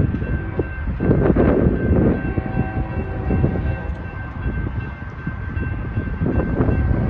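Railroad crossing warning bell ringing steadily while the gate arms lower, over a heavy low rumble. A train horn sounds faintly for about a second near the middle.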